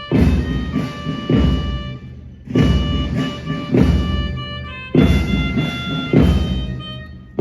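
Ceremonial band music for a national salute: held wind-instrument notes with a heavy drum stroke about every 1.2 seconds.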